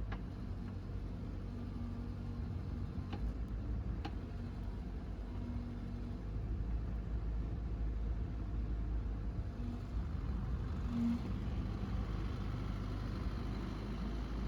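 A 2008 Bobcat 331 mini excavator's 42-horsepower diesel engine running with a steady low rumble, with a few sharp metallic clicks early on.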